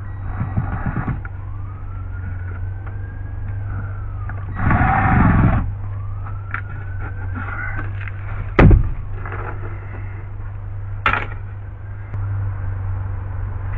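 A cordless screw gun runs for about a second, roughly five seconds in. A sharp knock follows a few seconds later, with a smaller one after it. Behind this is a steady low hum, and a faint wailing tone rises and falls twice.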